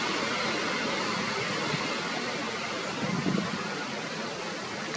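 A steady, even hiss of outdoor background noise, with a brief low rumble a little after three seconds in.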